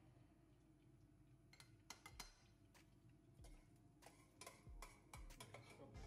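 Faint scattered clicks and taps from a small stainless steel saucepan handled on a gas hob: a spoon tapping the pot about two seconds in, then the pot knocking on the burner grate as it is tilted and moved.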